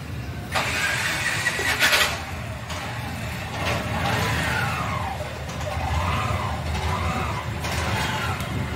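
A motor engine with a steady low rumble. About half a second in there is a loud hissing burst lasting over a second, followed by several rising and falling whines, like revving.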